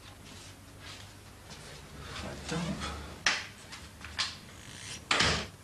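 A few short knocks and scrapes over a low hum, the loudest and longest near the end.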